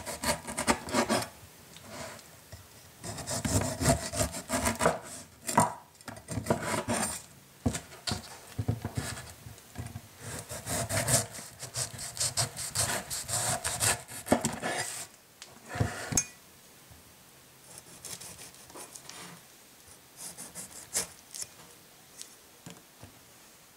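Broad cleaver sawing the tough rind off a whole pineapple: repeated rasping, scraping strokes through the skin, with the blade knocking on the wooden cutting board now and then. After about 16 seconds the cuts become fewer and quieter as the peeled fruit is trimmed.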